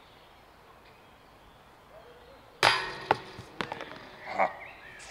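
A disc striking the chains of a DisCatcher disc golf basket: a sharp metal clank with ringing about halfway through, then a second hit, a run of chain rattles and a last clatter shortly after.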